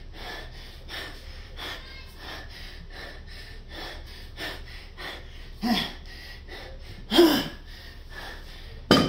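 A man panting fast and hard from heavy exertion late in a ten-minute kettlebell snatch set, with two short voiced gasps a little past the middle. A sharp knock near the end is the loudest sound.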